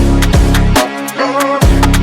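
Background electronic hip-hop music with a steady beat of heavy kick drums, deep sliding bass and sharp snare hits.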